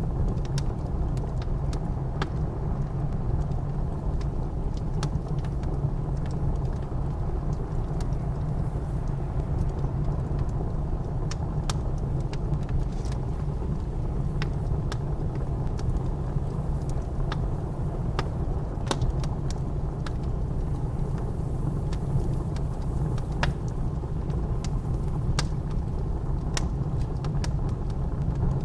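Wood fire crackling, with scattered sharp pops at irregular moments, over a steady low rush of blizzard wind.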